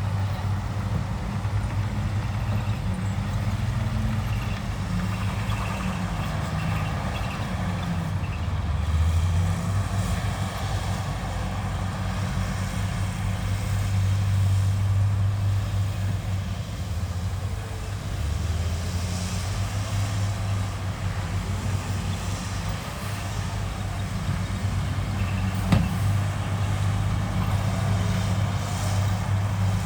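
Heavy diesel engine of earthmoving machinery running steadily, its pitch dipping and rising now and then as the load changes, with one sharp knock near the end.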